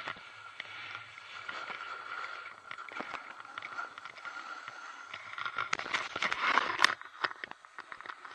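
Snowboard edge scraping and carving over packed snow, heard through a handheld action camera. About five and a half seconds in it builds to a loud, harsh scrape that cuts off just before seven seconds, as the board skids across the snow.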